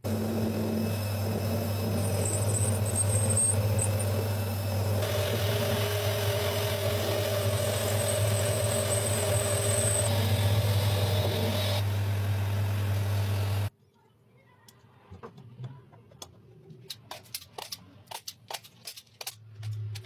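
An electric workshop power tool motor runs steadily with a strong low hum, then cuts off suddenly about two-thirds of the way in. A run of quick, light, sharp clicks follows.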